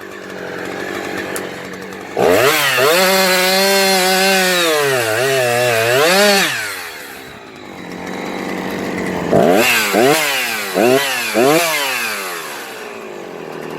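Husqvarna 357XP two-stroke chainsaw revving up about two seconds in and running at high speed for about four seconds, its pitch dipping under load as it cuts wood, then dropping back to idle. Near the end it gets a few short throttle blips.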